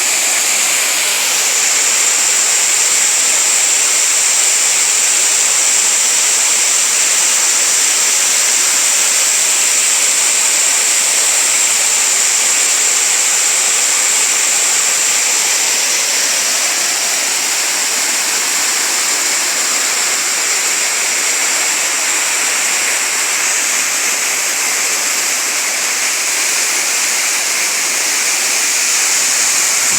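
Waterfall: water falling and rushing in a steady, even rush without breaks.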